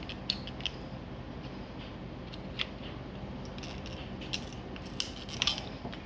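Small metal tools, razor blades and a screwdriver, clicking and scraping irregularly against the plastic shell of a toy phaser prop as they are pushed and twisted into its seam, which does not open.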